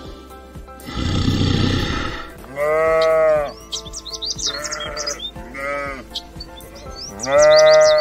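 Sheep bleating: four wavering bleats, the loudest two about two and a half seconds in and at the very end, with two shorter ones between. A rough, noisy sound comes first, about a second in.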